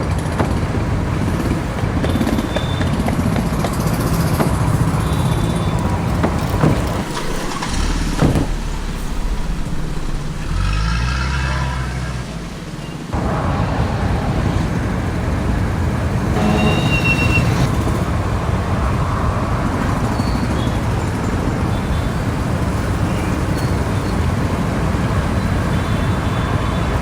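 Homemade replacement sound effects for a car chase: steady car and traffic noise, with a lower, pitched hum from about 8 to 13 seconds in.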